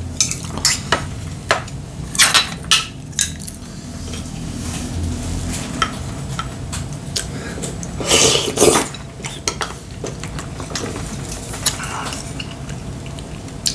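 Tableware clinking and knocking: chopsticks and a spoon against ceramic bowls and plates as a meal is set out and begun, with a louder clatter a little past the middle. A low steady hum runs underneath.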